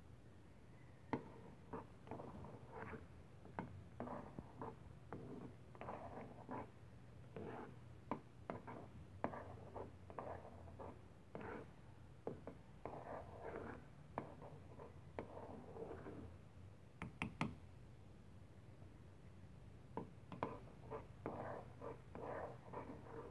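A spoon stirring thick chocolate rice porridge in a pot, scraping and knocking irregularly against the pot's sides and bottom, with a quick run of sharper clicks about two-thirds of the way through.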